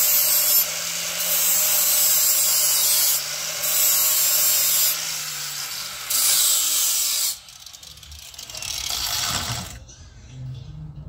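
Hand-held power tool running against the car's sheet-metal front end, loud and steady with a low hum under it, easing off briefly a few times before it stops about seven seconds in; fainter handling sounds follow.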